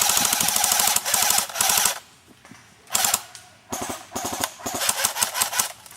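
Airsoft guns firing in rapid bursts: one long burst of fast clicking shots, a brief pause, then shorter bursts.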